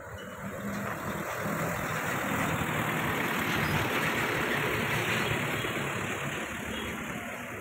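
Motor vehicle engine running, with a hiss of tyres on a wet road, swelling over the first few seconds and easing off slightly near the end.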